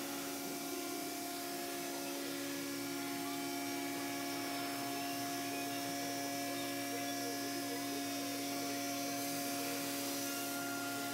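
3-axis CNC router spindle running as its bit cuts a thermoformed plastic louver part: a steady hum with a hiss over it.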